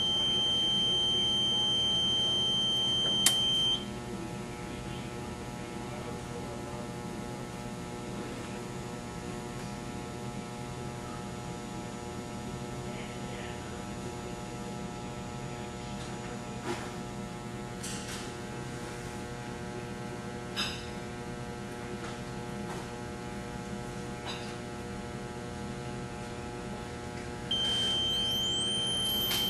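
Surge tester firing 6,000-volt surges into a Multilink BlackHawk's output. A steady high beep with a whine rising over it is cut off by one sharp snap about three seconds in as the surge fires. A steady electrical hum with a few faint ticks follows, and the rising whine and beep start again near the end.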